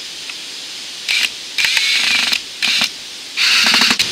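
Cordless power driver running screws in four short bursts of whirring, the longest close to a second.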